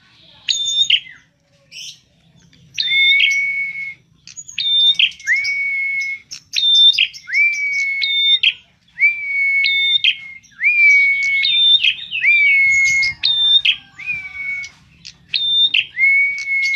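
Prenjak (prinia) singing its shrill song: a short high note followed by a long, steady, lower whistle, repeated over and over about once a second.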